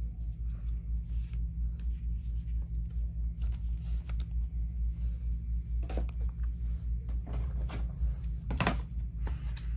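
Stiff chrome trading cards being shuffled through by hand, sliding and clicking against one another in short scattered rustles, two louder ones a little past the middle and near the end, over a steady low hum.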